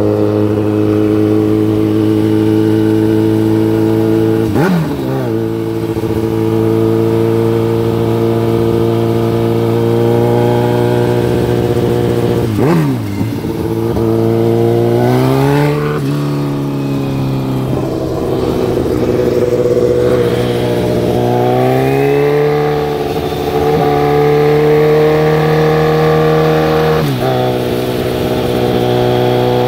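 Kawasaki Ninja ZX-14R inline-four through a Voodoo short full exhaust, cruising at low speed. The exhaust note holds steady for long stretches, dips sharply and recovers a couple of times, climbs twice, and drops again near the end.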